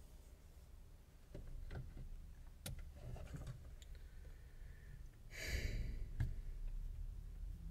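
Quiet handling sounds: a few light clicks and taps as a hand touches a stainless steel camping mug on a wooden table, and a brief breathy sigh about five and a half seconds in.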